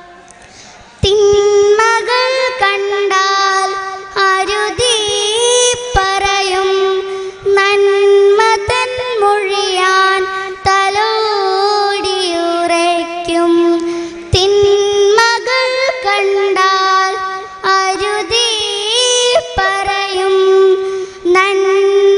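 A child singing a slow Malayalam song through a microphone and PA, with long held notes that waver and bend. There is a short pause in the first second.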